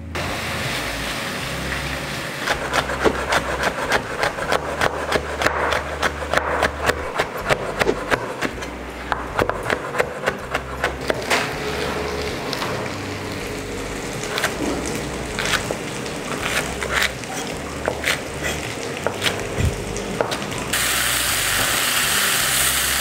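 Kitchen knife chopping on a cutting board in quick, uneven strokes, over the faint sizzle of spice paste frying in oil. Near the end the chopping stops and a louder, steady sizzle of the paste in the pan takes over.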